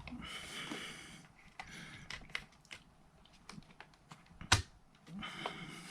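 Scattered small clicks and taps of a screwdriver and stiff cable being worked into the terminals of a wall socket faceplate, the sharpest click about four and a half seconds in, with two short spells of rustling hiss.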